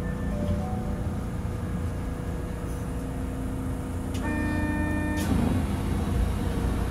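Rubber-tyred automated guideway train running along its guideway, heard from inside the cabin: a steady low rumble with faint motor tones. About four seconds in, a steady pitched tone is held for about a second and ends with a click.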